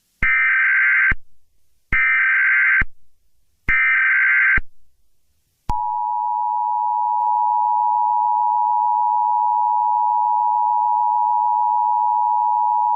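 Emergency Alert System header: three short bursts of screeching SAME digital data, about a second each, followed about six seconds in by a long, steady alert tone. This is the electronic signal that marks the start of a new weather warning broadcast.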